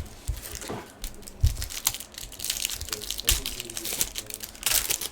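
Trading cards and their packaging being handled: crinkling wrapper or plastic, with quick clicks and snaps as the cards are shuffled and slid apart.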